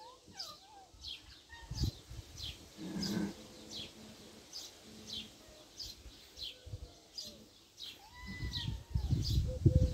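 Sheep bleating: one low bleat about three seconds in and higher calls near the end, over small birds chirping in a steady repeated rhythm. Loud rumbling handling noise near the end.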